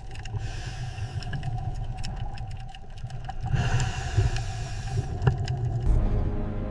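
Low, steady engine-like rumble with a constant hum above it and scattered clicks.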